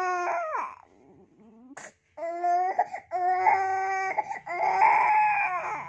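Baby crying in long wails. One cry slides down and stops about half a second in, then after a second or so of quiet three more cries follow close together.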